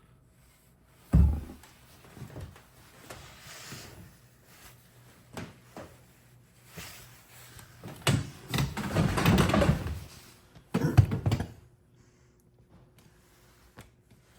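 Small metal parts of a Ford door lock cylinder being handled and fitted together on a bench: a sharp knock about a second in, scattered clicks, then a longer stretch of rattling and scraping, followed by a few more clicks.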